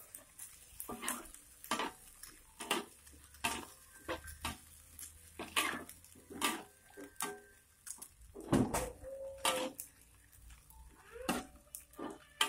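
Metal spatula scraping and knocking against a wok while stir-frying squid, in irregular strokes about one or two a second.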